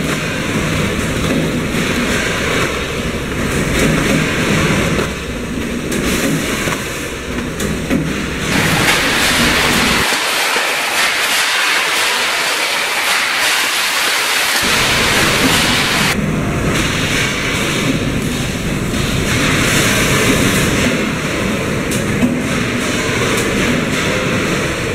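Factory packing line running: conveyor belts and a vertical charcoal baling machine making a loud, steady mechanical noise. A few seconds in the middle, the sound changes abruptly to a higher hiss with no low rumble, then the fuller machine noise returns.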